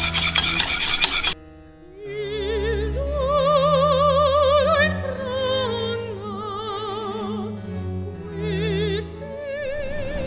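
Background music: an operatic voice singing with a wide vibrato over sustained low orchestral notes.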